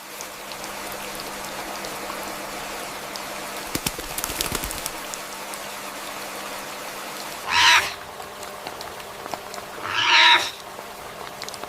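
Two loud, short, harsh bird calls a couple of seconds apart, over the steady hiss of heavy rain on rainforest foliage, with a brief patter of drips about four seconds in.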